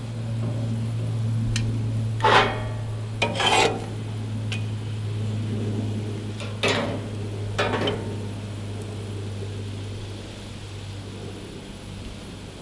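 Steel grill tongs and a frying pan being handled on a gas grill: four short metallic scrapes and rasps, the loudest about two and three and a half seconds in, over a steady low hum.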